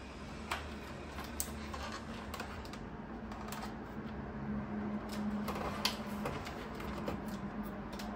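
Scattered light clicks and taps of cardboard box inserts and small doll accessories being handled and lifted out of a paperboard presentation box, the sharpest a little after the middle. A faint steady hum runs underneath.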